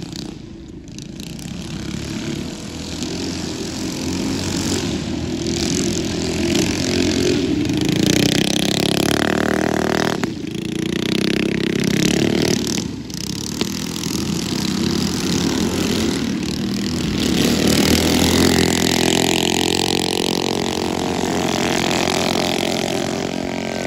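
Two racing mini bikes with 212 cc single-cylinder four-stroke engines (a stage 4 Predator 212 and a Tillotson 212R) run at full throttle. Their pitch rises and falls as the riders open up on the straights and back off for corners and jumps, with a couple of brief drops in the engine note partway through.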